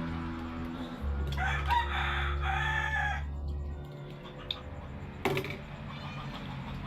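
A rooster crows once, a call of about two seconds starting about a second in, over a steady low hum. A sharp knock comes near the end.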